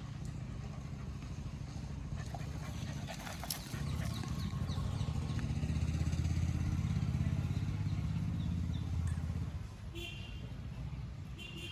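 A motor vehicle's engine running close by, swelling in level about four seconds in and dropping away again after about nine seconds.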